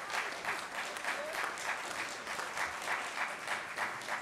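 Congregation applauding, the claps falling into a steady rhythm of about three to four a second.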